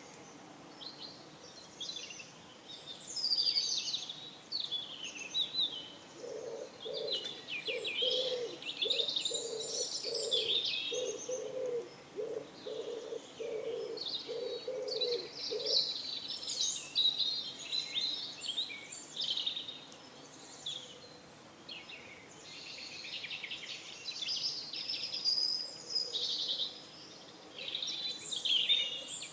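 Many small birds chirping and twittering throughout. About six seconds in, a pigeon coos in a steady run of low, evenly spaced notes for about ten seconds.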